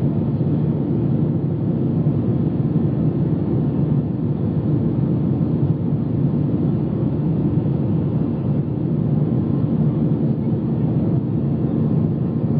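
Steady low drone of an airliner's jet engines and rushing air, heard inside the passenger cabin during the climb after takeoff.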